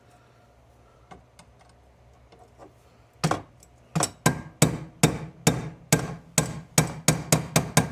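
Hammer striking a steel punch in a run of sharp metal blows, beginning about three seconds in and quickening toward the end, to drive a drilled-out rivet out of a car's wing-window frame.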